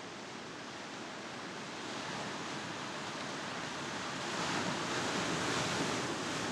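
Ocean surf: a steady rush of waves that swells louder about four seconds in.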